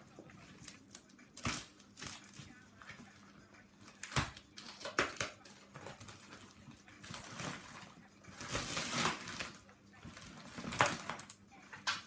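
Packaging being ripped open by hand: irregular tearing, crinkling and scraping of the box's sealed cover, with a few sharp rips and a longer tear about eight and a half seconds in.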